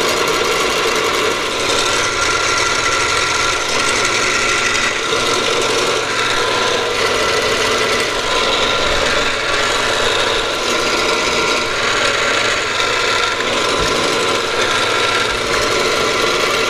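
Vertical milling machine running steadily as a spotting drill spots a six-hole bolt circle into a heat-treated 4140 steel part, with a steady motor and spindle whine over the cutting noise.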